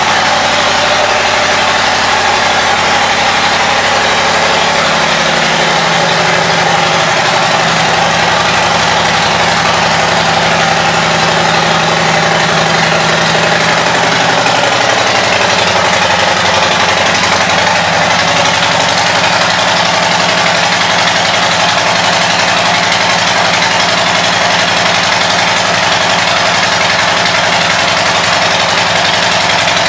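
Harley-Davidson Street Bob's 114 cubic inch Milwaukee-Eight V-twin idling steadily through aftermarket exhaust pipes, just after a start. The idle note steps lower about five seconds in and again near the middle.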